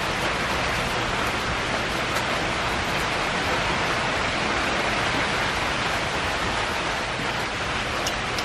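Heavy rain falling steadily on the woods and wet concrete patio, an even hiss, with a few separate drops ticking now and then.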